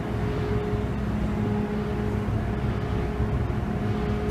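Ferry's diesel engines running steadily underway, a constant low drone with a steady hum on top, heard from the car deck.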